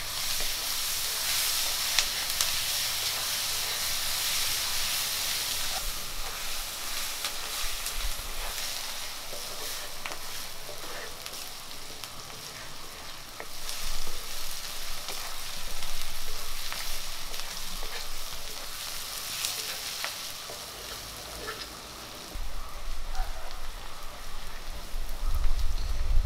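Chopped shallots sizzling in hot oil in a heavy black iron wok, with a wooden spatula stirring and scraping them against the pan in intermittent clicks and swells. A low rumble joins near the end.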